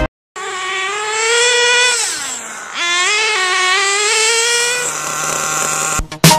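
Nitro RC truck's small two-stroke glow engine running at high revs with a high-pitched whine. About two seconds in the revs drop sharply, and they climb back up within a second. Music starts up near the end.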